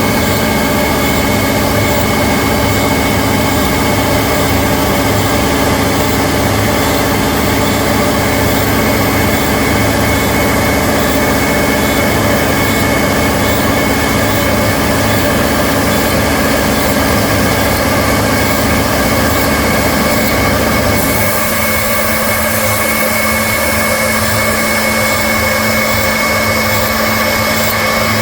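CNC machine running steadily, a loud machine sound made of several steady tones over a low rumble. About three quarters of the way through, the low rumble drops away, leaving a steady hum and more high hiss.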